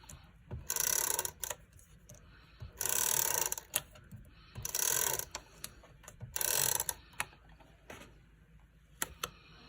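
Easy Runner Grand tape-runner adhesive gun drawn across cardstock in four strokes, each a ratcheting zip lasting about a second, with a few small clicks between strokes.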